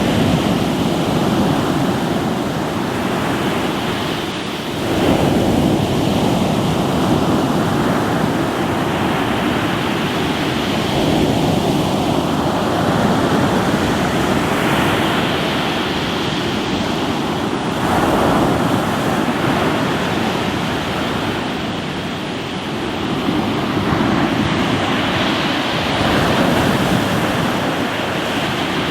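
Sea waves breaking and washing on a rocky shore: a continuous rushing surf that swells with each incoming wave, with stronger surges several seconds apart.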